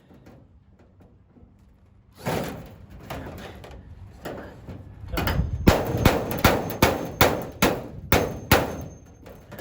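Cordless impact driver forcing a screw through aluminum sheet into a steel truck bed: the tool runs from about two seconds in, then hammers in a run of about nine sharp metallic clanks as the screw struggles to bite through the aluminum.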